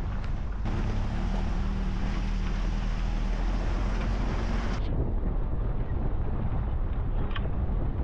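Low rumble of an SUV driving on a rough dirt road, with wind buffeting the microphone. The sound changes abruptly twice, about a second in and about five seconds in.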